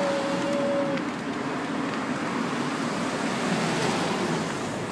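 Steady rush of city street traffic noise, with a short held tone in the first second.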